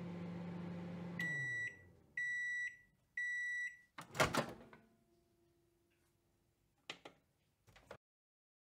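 Microwave oven finishing its run: the running hum winds down, three high beeps sound about a second apart as the timer ends, and the door then pops open with a loud clunk. Two short clatters follow near the end.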